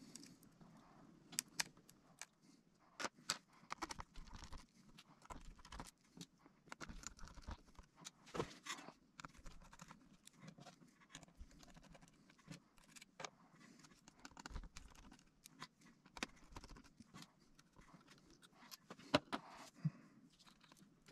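Faint, irregular small clicks and taps of a screwdriver and plastic pry tool on the parts of an opened MacBook Pro laptop while its speakers are removed, with light handling noise between them. A few louder clicks come about 1.5, 3, 8.5 and 19 seconds in.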